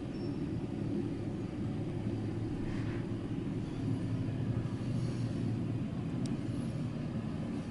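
Steady low rumble, with a faint tick about six seconds in.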